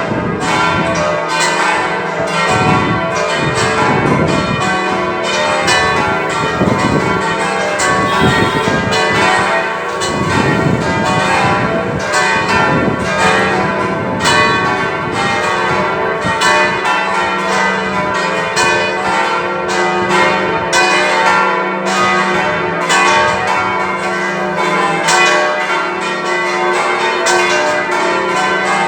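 A peal of six church bells ringing together, struck in quick succession so their tones overlap and ring on into one another without a break.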